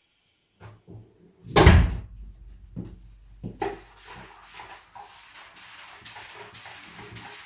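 A loud thump about a second and a half in, followed by a few lighter knocks.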